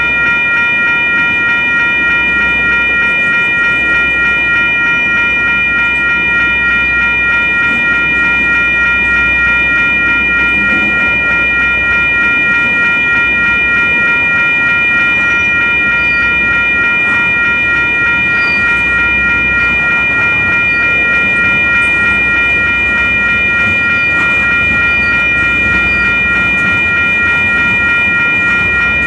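WCH electronic grade-crossing bells ringing steadily and loudly, over the low rumble of freight covered hopper cars rolling across the crossing.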